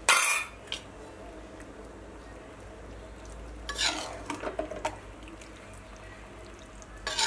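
A metal spoon clanking and scraping against a kadai of chicken liver curry: a sharp clank at the start, a cluster of scrapes and clinks about four seconds in, and another clank at the end, over a faint steady sizzle of the curry cooking on a low flame.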